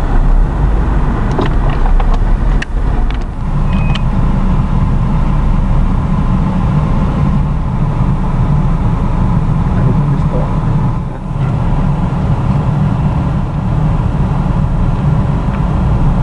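Car engine running at low speed, a steady low rumble heard from inside the car's cabin, with a few light clicks in the first few seconds.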